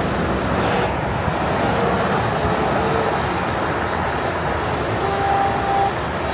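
Steady road and wind noise of a moving car, a continuous rumble with no distinct events.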